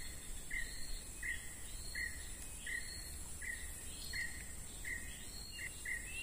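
Insects droning steadily at a high pitch, with a bird's short call repeated about three times every two seconds over it.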